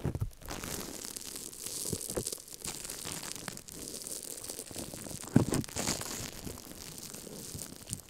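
Gold-leaf-covered moonstone slime squeezed and kneaded by long acrylic nails right on the microphone, giving close sticky crackling and crinkling. A louder low squelch comes about five and a half seconds in.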